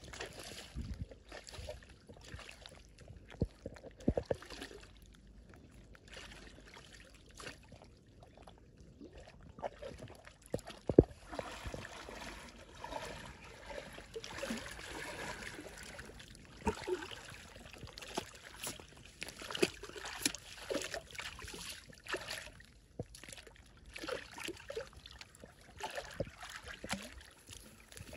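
Stream water splashing and sloshing in irregular bursts, with scattered sharp splashes and knocks; the loudest comes about eleven seconds in.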